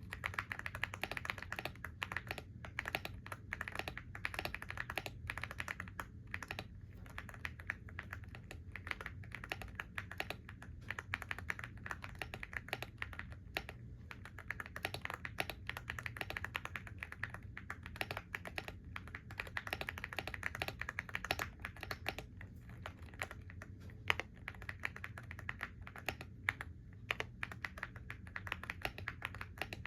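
Typing on a computer keyboard: a dense, uneven run of fast keystroke clicks with brief lulls.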